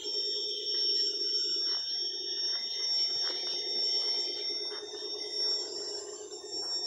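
Steady high-pitched trilling of night insects over a lower, finely pulsing chorus, with a few faint clicks.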